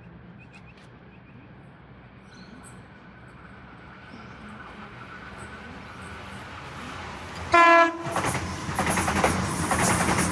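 A train approaching, its sound slowly growing, gives one short, loud horn blast about seven and a half seconds in, then runs past close by with loud wheel clatter.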